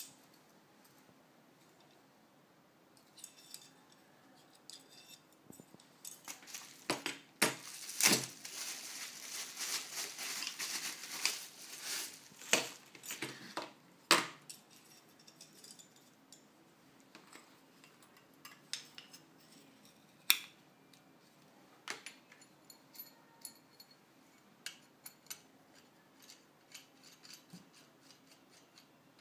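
Steel rods, clamps and fittings of a fixed-angle knife sharpener being handled and fitted together, with scattered metallic clicks and clinks. About a third of the way in there is a dense stretch of crackly rustling.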